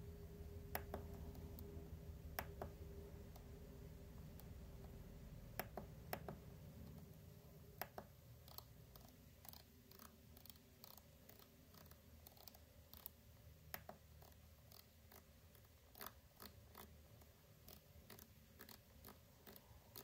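Faint, irregular clicks of a rotary encoder knob being turned by hand, coming more often in the second half, over a low steady hum.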